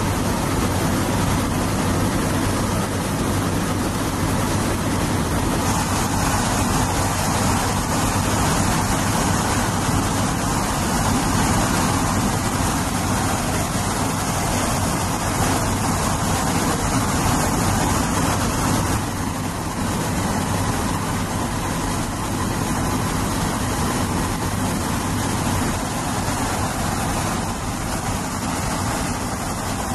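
Steady drone of an Airbus A400M Atlas's four turboprop engines heard inside the aircraft, a constant low hum under a broad rushing noise.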